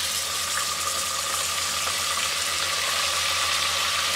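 Raw minced beef sizzling in hot oil in a pressure cooker as it is dropped in: a steady frying hiss.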